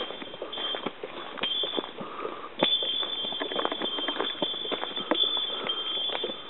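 Footsteps on a dirt and leaf-litter forest trail, with a steady high-pitched insect buzz behind them. The buzz breaks off a few times in the first half and then holds steady.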